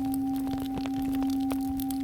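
Singing bowl ringing on after a strike, a strong steady low tone with a fainter higher overtone above it, over the sharp intermittent crackles of a campfire.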